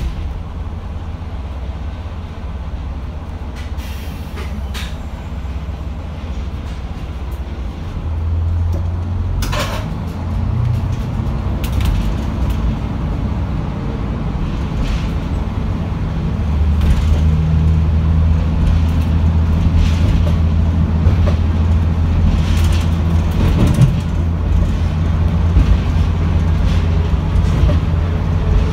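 Diesel railcar's engine running as the train pulls away and gathers speed, its low drone stepping up in level about eight seconds in and again about halfway through. A few sharp clicks sound over it early on.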